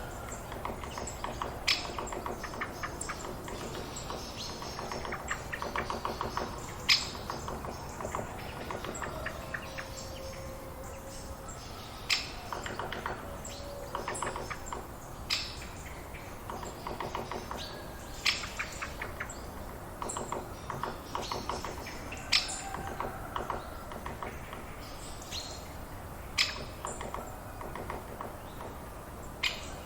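Several wild birds chirping and singing in a forest near farmland. A sharp high call recurs every three to four seconds, over repeated rapid trills and a soft steady background.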